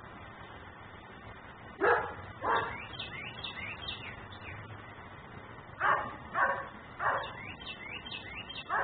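German shepherd barking in short separate barks: a pair about two seconds in, then four more from about six seconds on. Birds chirp faintly between the barks.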